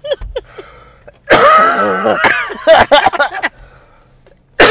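People laughing hard: one long fit of laughter starting about a second in, then another burst of laughter beginning near the end.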